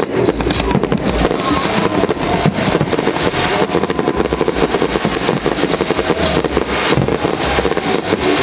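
Aerial fireworks shells going off in a dense, continuous barrage, many bangs and crackles every second overlapping with no pause.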